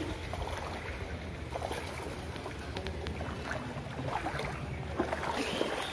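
Floodwater sloshing around the legs of someone wading through a waterlogged street, with wind rumbling on the microphone.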